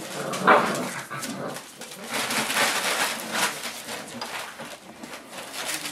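Five-week-old Boerboel puppies whimpering and yelping, with the loudest cry about half a second in.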